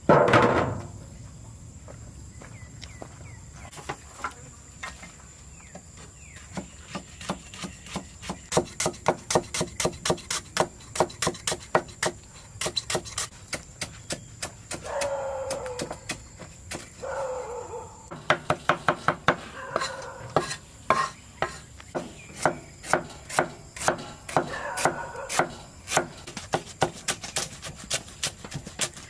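Knife chopping on a cutting board in steady, sharp strokes of about three a second, starting a few seconds in. A loud, brief sound comes at the very start, and short animal calls come in between the strokes around the middle.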